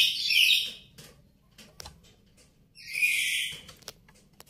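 A bird calling in two high-pitched bursts, one at the start and one about three seconds in, each lasting under a second, with a few faint clicks between them.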